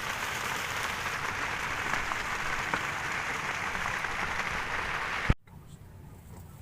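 Steady rain falling, an even hiss with scattered drop ticks, that cuts off abruptly with a click about five seconds in, leaving a much quieter background.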